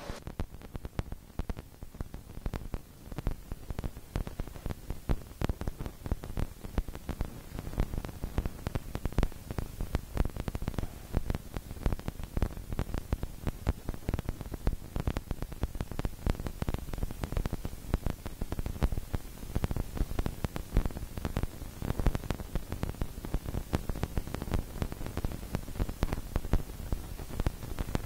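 Heavy rain falling, with a dense, irregular ticking of raindrops striking close to the microphone over a low rumble.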